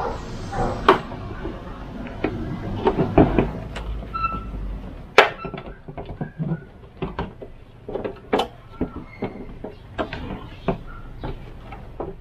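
Plastic headlight lens being pried off its housing: a string of irregular clicks, creaks and knocks as the retaining clips and sealant give way.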